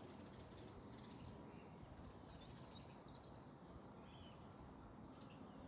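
Faint birdsong: scattered chirps and short twittering phrases from small birds, over a low steady background rumble.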